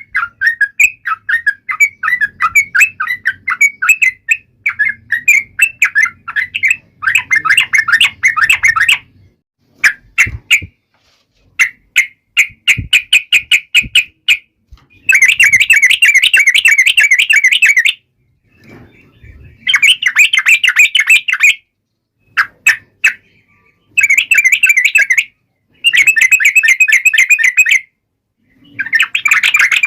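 Yellow-vented bulbul (trucukan) giving loud, rapid chattering series of harsh notes in bursts of one to three seconds with short pauses between: the taunting call aimed at a rival bird.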